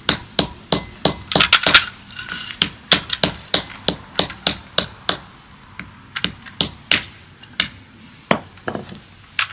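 Small hammer tapping again and again on hard-shelled butternuts (white walnuts), about three sharp taps a second, with a burst of crackling shell about a second and a half in as a nut splits. The taps thin out after about five seconds.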